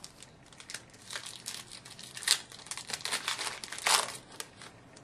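Plastic wrapper of a hockey trading-card pack crinkling and tearing as it is opened, a dense run of crackles with two louder rips about two and four seconds in.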